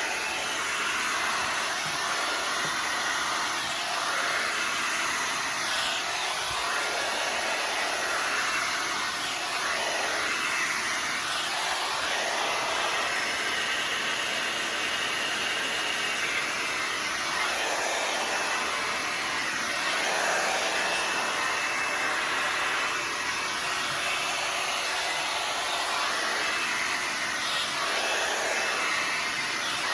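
The Knot Dr. blow dryer running steadily on its low setting, blowing air through hair. The rush of air shifts slightly in strength as it moves.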